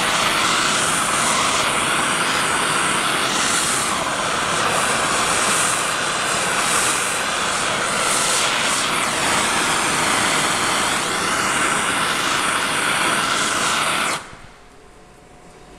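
Handheld gas torch burning with a steady hiss while its flame warms a drill chuck; the hiss cuts off abruptly near the end as the torch is shut off.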